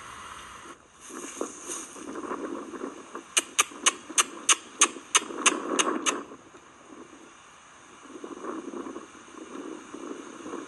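A quick run of about a dozen sharp clicks, about four a second, lasting some three seconds, over a steady rough background noise.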